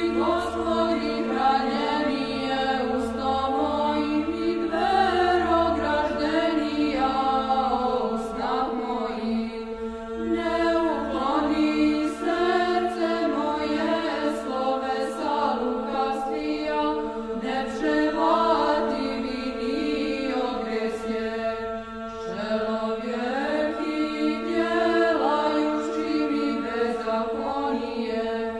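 Orthodox church chant: voices singing a slow, winding melody over a steady held drone note.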